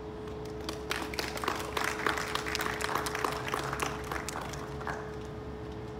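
Audience applauding: scattered clapping that picks up about a second in and dies away near the end.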